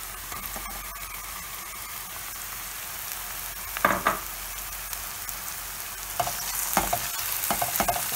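Oil sizzling in a frying pan as dry bulgur is tipped onto sautéed onions and peppers, with two sharp knocks about four seconds in. From about six seconds a wooden spoon stirs and scrapes the bulgur around the pan, the sizzling growing louder as the grains toast in the oil for pilaf.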